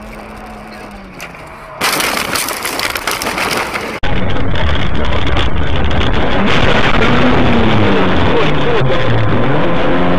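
Dashcam audio of cars on a snowy road in crashes: road and engine noise that jumps abruptly louder twice, about two and four seconds in, and is very loud and harsh in the second half, with pitched sounds rising and falling over it in the last few seconds.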